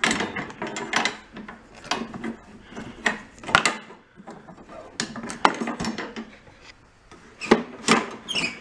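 Irregular plastic-and-metal clicks, knocks and rubbing, roughly one a second, as the drive lever, bail bar and cables on a Toro Personal Pace mower's handlebar are worked by hand. The lever's bar is broken out of its plastic mount, so working it does nothing for the self-propel drive.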